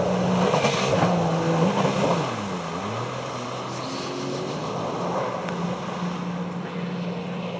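Jet ski engine running hard, its pitch stepping up and down, dipping and climbing again about two and a half seconds in, then settling to a steady drone.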